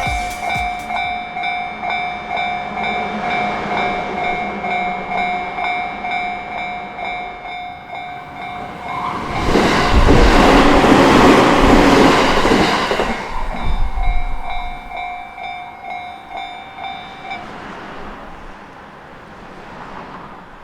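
A Japanese level-crossing bell rings in quick repeating strokes while a JR Sobu Main Line train passes over the crossing. The train's wheels and running gear are loudest for about four seconds near the middle and drown out the bell, and the bell stops a few seconds after the train has gone.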